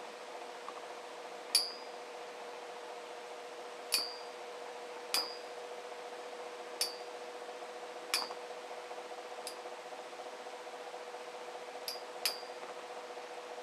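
Two Beyblade Metal Fusion spinning tops battling in a tray stadium: their metal fusion wheels knock together in about eight sharp clinks, each ringing briefly. A steady hum runs underneath.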